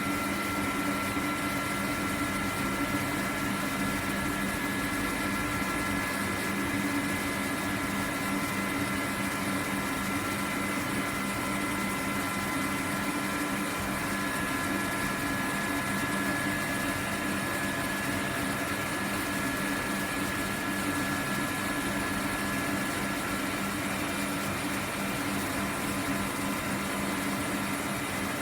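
CNC laser cutting machine running on steel plate: a steady hum and hiss with several held whining tones, the higher whines changing pitch about halfway through.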